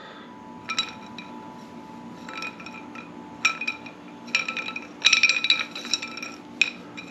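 Knife blade shaving a cedar spindle round in short scraping strokes, each with a light metallic ring. The strokes come in quick clusters, busiest a little after the middle.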